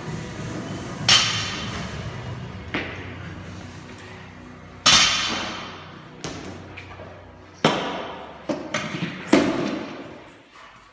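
Loaded barbell with bumper plates hitting the gym floor again and again, about seven heavy thuds, each followed by a short ringing decay; the loudest comes about five seconds in.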